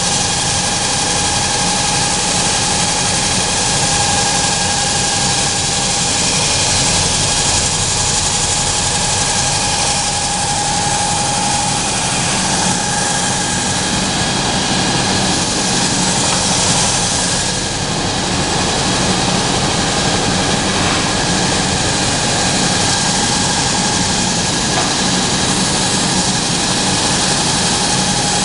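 Industrial woodworking sanding machine running: a steady rushing noise with a constant whine from its motors and spinning rollers.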